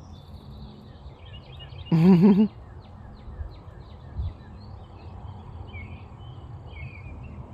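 Small birds chirping in many short, quick calls over a steady background hum, with one brief voice-like sound about two seconds in.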